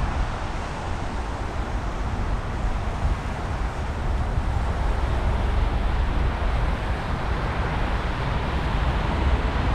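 Steady wind rush on the microphone of a camera riding on a moving bicycle, mixed with road traffic on a wet street.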